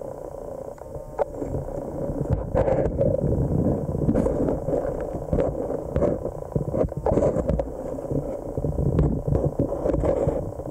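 Muffled handling noise from an underwater camera: irregular knocks, clicks and scrapes over a low rumble, growing louder about two seconds in.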